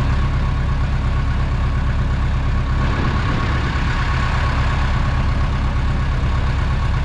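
Tractor engine running steadily at a constant speed, with a thin steady whine above it.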